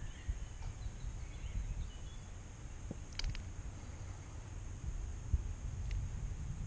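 Quiet outdoor ambience: a low, uneven rumble with a faint steady high hiss, and a few faint clicks about three seconds in and again near the end.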